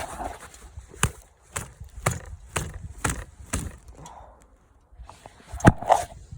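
Sharp knocks about two a second, six in a row, as something is banged against a hard surface to knock snow off it, then after a short pause one louder knock near the end.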